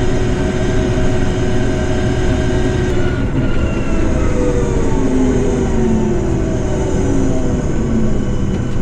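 Combine harvester running with a steady, loud machine hum. From about three seconds in, several tones slowly fall in pitch, as something in the machine changes speed.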